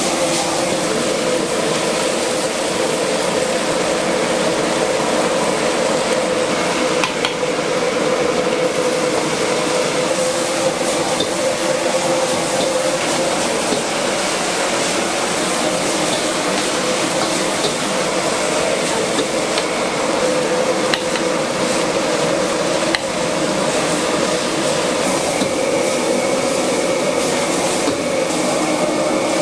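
Stir-frying in a wok over a high gas flame: the commercial wok burner's steady roar mixed with diced onions and potatoes sizzling, and a metal ladle knocking against the wok now and then.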